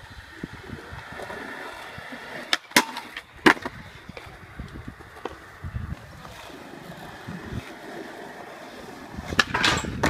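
Skateboard wheels rolling over concrete, with a few sharp clacks of the board a few seconds in. Near the end a louder clatter as a board hits a low metal rail.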